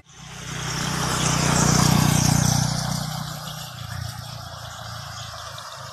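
A motor vehicle driving past, its engine and tyre noise swelling to loudest about two seconds in and then fading away.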